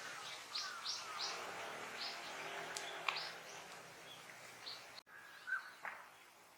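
Small birds calling with short high chirps: three in quick succession about half a second in, then scattered single chirps over a steady outdoor hiss. The sound breaks off abruptly about five seconds in, and a lower short call follows.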